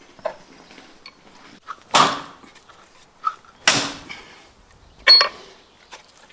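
Hatchet chopping into an ostrich leg on a wooden chopping stump: three heavy chops about a second and a half apart, the last with a brief metallic ring, with a few lighter knocks between.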